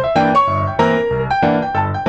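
Background music: piano or electric piano playing a steady run of notes, about four a second.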